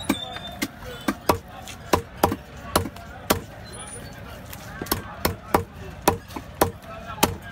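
Large curved knife chopping small trevally on a wooden stump block: a quick, irregular series of sharp knocks as the blade cuts through the fish and strikes the wood, about a dozen in all, with a short pause in the middle.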